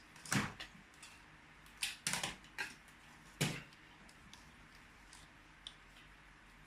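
A few light, scattered clicks and knocks of a welder's rectifier board and test tools being handled on a workbench, ahead of testing the board with a multimeter.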